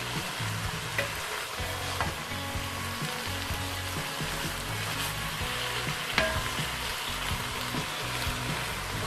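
Banana blossom and chicken sizzling in a frying pan as they are stirred, with a few sharp clicks of the stirring utensil against the pan, the loudest about six seconds in.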